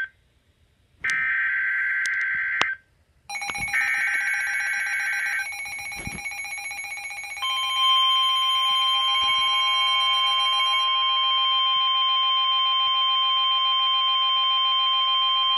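NOAA Weather Radio alert signal for a severe thunderstorm warning. First come two bursts of the SAME digital header, a warbling data tone about a second and a half long each, a second apart. Then, about seven seconds in, the steady 1050 Hz warning alarm tone starts and holds, with a fainter steady tone beneath.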